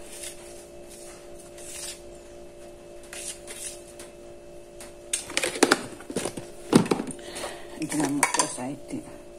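Plastic and glass kitchen containers knocking and clinking as they are picked up and handled, with a few sharp clatters around the middle and a cluster near the end. A steady low hum runs underneath.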